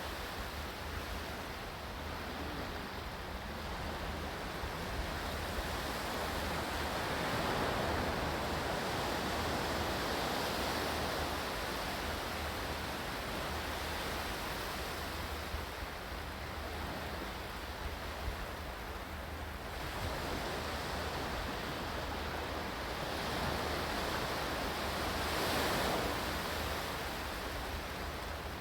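Ocean waves washing in: a steady rush of surf that swells louder twice, slowly and then again near the end.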